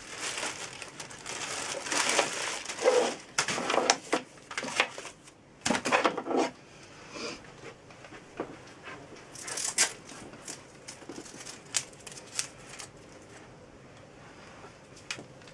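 Handling noise: crinkling packaging with scattered clicks and knocks, busy for the first several seconds and then sparser, as the laptop's charger is got out and plugged in.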